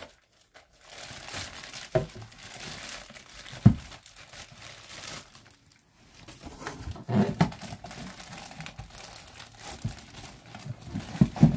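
Clear plastic wrapping crinkling and rustling as a plastic citrus juicer and zester is unwrapped, with a few sharp knocks of hard plastic.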